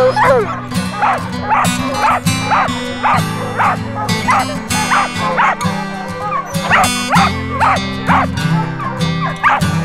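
Hunting hounds, then a mountain feist, barking treed with steady barks about two a second: the bark that tells the hunter a bear is up the tree. Background music plays under the barking.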